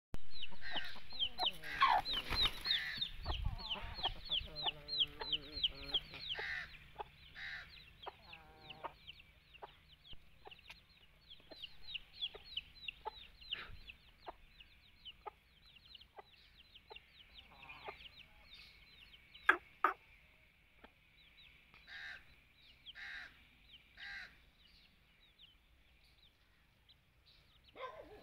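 Aseel chicks peeping steadily in rapid high, falling chirps, several a second, busiest at first and thinning out later, while the hen clucks low among them. A few sharp clicks cut in, the loudest about two-thirds of the way through.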